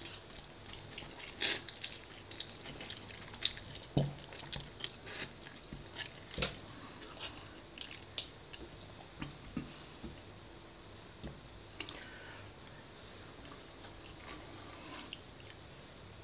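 A person chewing a mouthful of spaghetti bolognese, with irregular wet clicks and smacks that thin out after about ten seconds.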